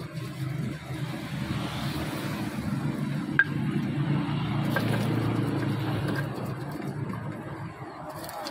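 Stone pestle mashing and scraping rujak sauce in a stone mortar (ulekan on cobek), with a few sharp taps of stone on stone, the clearest about three and a half seconds in. Under it runs the steady low hum of an engine.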